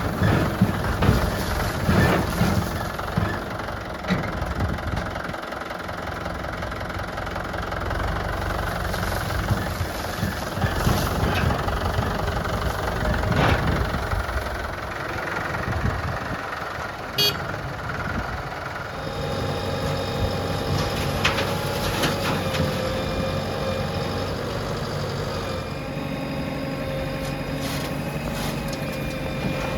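Diesel engines of a backhoe loader and tractor running, with scattered knocks in the first half. From about two-thirds of the way in the engine sound steadies into a held drone.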